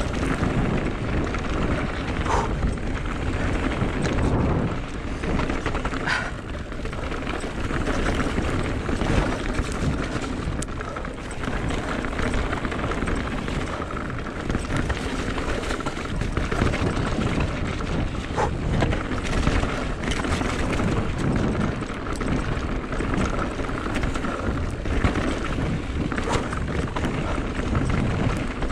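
Mondraker Level RR e-mountain bike riding fast downhill over a stony trail: continuous rumble of the tyres on gravel and rattle of the bike, with a few sharp knocks from impacts.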